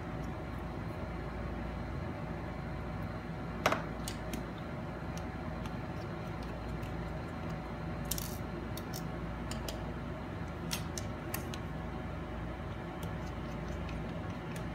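Small sharp clicks and light metallic taps of a precision screwdriver and tiny screws being worked inside an opened laptop, the loudest a single click a few seconds in and a few fainter ones later, over a steady low hum.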